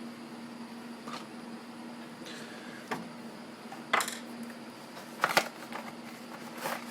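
Small hard objects being handled on a workbench: a handful of separate short clicks and knocks, the sharpest about four and five seconds in, over a steady low hum of a nearby fan.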